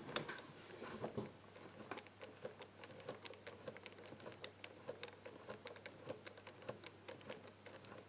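Faint, quick clicking of the number wheel of an ABUS Tresor Chain Catena Combo 1385 combination bike lock, turned by hand through its numbers while the tensioned bolt is felt for a gate.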